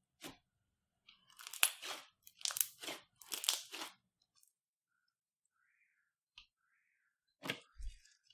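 Slime with sand mixed into it being squeezed and pressed by hand, giving crunchy, crackling squelches: a quick one at the start, a dense run over about three seconds, and two more near the end.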